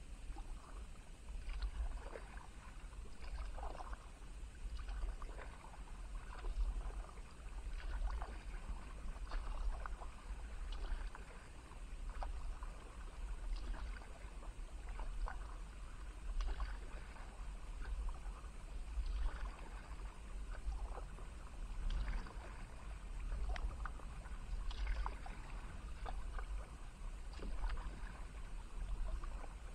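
Kayak paddle strokes in calm water: a splash and trickle of drips with each blade dip, at an even pace of about one stroke every second and a half, over a steady low rumble.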